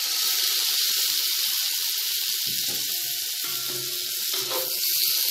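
Water poured into a hot pan of fried shallots, tomato and spice masala, hissing and sizzling steadily as it hits the hot pan while the mix is stirred.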